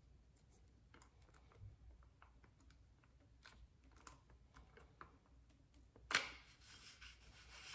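Faint small clicks and handling noises of a steel handlebar being worked inside a motorcycle's plastic handlebar control housing, then about six seconds in a louder knock and scrape as the bar starts sliding out through the housing.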